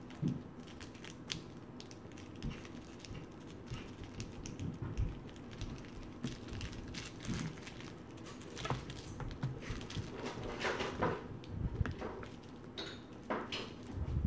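Handling noise as an iPad mini is pressed and worked into a snug red Spider-Man protective case: scattered soft knocks, clicks and rubbing, busier in the second half.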